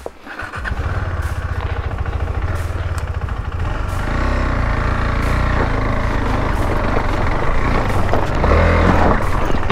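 KTM 390 Adventure's single-cylinder engine pulling the bike up a rocky off-road trail. It comes up about half a second in and gets louder near the end as the throttle opens further.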